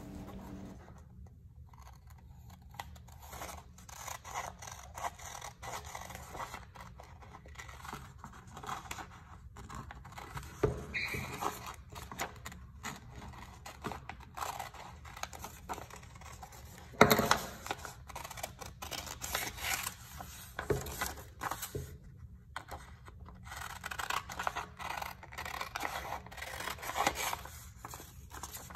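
Scissors snipping through a sheet of paper, an uneven run of cuts with the paper rustling as it is turned. One sharper, louder snip comes about seventeen seconds in.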